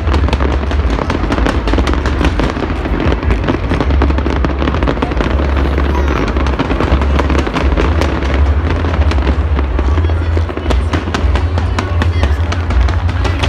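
A New Year's fireworks display going off in a dense, unbroken barrage: rapid overlapping bangs and crackles over a constant low rumble of booms.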